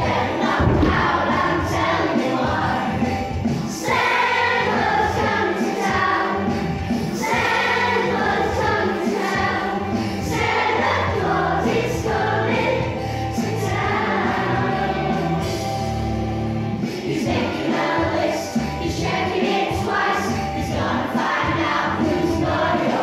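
Children's choir of about ten-year-olds singing a Christmas song medley together over musical accompaniment.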